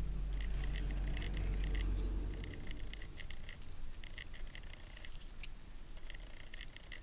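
Cat licking paste from a squeeze-tube treat, quick wet tongue clicks coming in short runs several times over.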